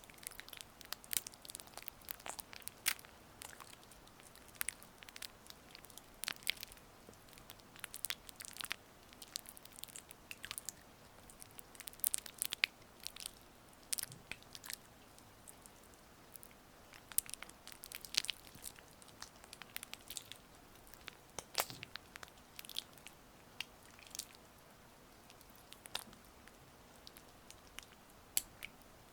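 Gua sha stone worked over oiled skin close to the microphone: irregular wet, sticky clicks and squishes coming in uneven clusters.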